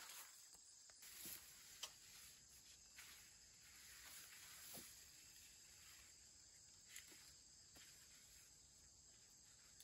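Near silence: faint outdoor background with a few soft clicks and rustles, about three of them spread through, as okra plants are handled.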